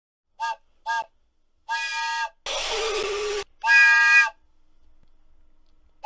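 Wooden toy train whistle blown in a run of toots, each sounding several notes at once like a chord: two short toots, a longer one, a rushing, breathy blast, then a loud long toot. Another short toot comes right at the end.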